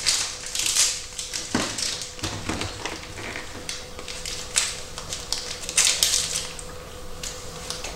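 Plastic sweets packet crinkling and rustling in irregular bursts as it is handled and opened, with scattered small clicks.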